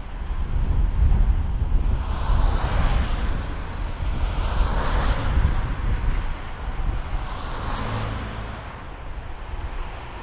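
Strong gusty wind buffeting the microphone in uneven swells, with a distant Airbus A300-600 freighter on approach faintly underneath.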